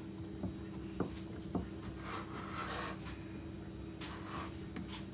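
Hands pressing shortcrust pastry into the edges of a tart tin: three soft knocks in the first two seconds, then rubbing and brushing sounds, over a steady low hum.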